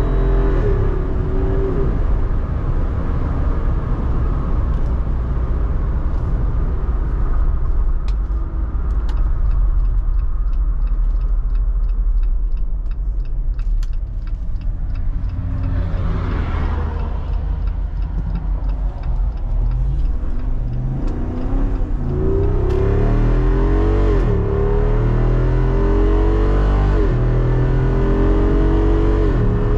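Jeep Wrangler Rubicon 392's 6.4-litre HEMI V8 running as the vehicle drives. In the last third it accelerates hard, its pitch rising and dropping back several times as the transmission upshifts.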